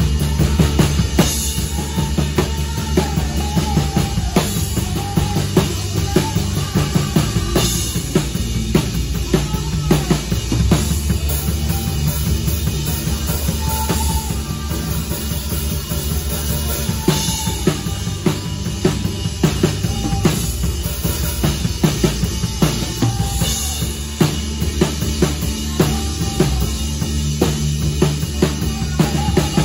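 A PDP drum kit with Meinl Pure Alloy Custom cymbals played in a steady groove: kick drum, snare and cymbal hits in a continuous beat. The rest of the band plays underneath, with sustained low bass notes.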